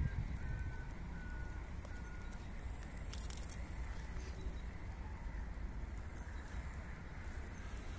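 A bird calling, a few short, even notes a little over half a second apart, ending about two seconds in.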